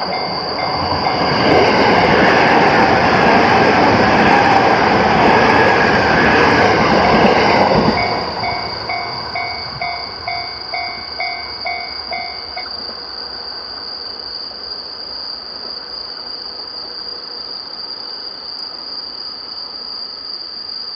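Japanese level-crossing warning bell ringing its repeated two-tone clang about twice a second while a train passes loudly over the crossing for about six seconds. After the train has gone the bell rings on for a few seconds and then stops.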